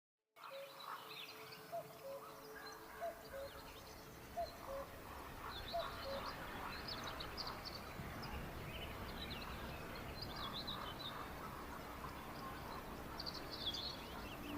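Outdoor nature ambience with birds chirping in many quick, high calls. A lower, short note is repeated several times in the first five seconds.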